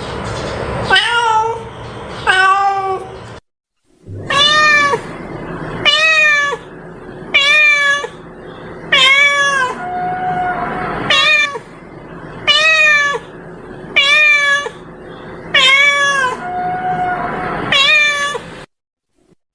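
A cat meowing over and over, about a dozen drawn-out meows, each rising and falling in pitch, one every second or so. The sound cuts to dead silence twice, as in an edited, looped cat-call track.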